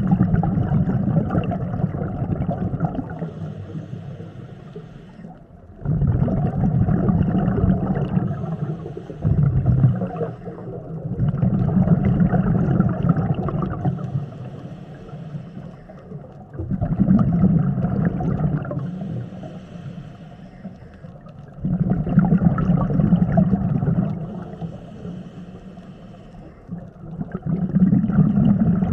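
Scuba diver breathing through a regulator underwater: a gurgling rush of exhaled bubbles comes about every five to six seconds, six times, each fading before the next breath.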